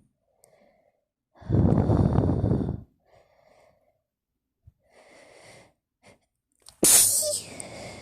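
A person sneezing during a sneezing fit. Gasping in-breaths come first, along with a loud rush of breath lasting about a second and a half. A sudden, explosive sneeze comes about seven seconds in.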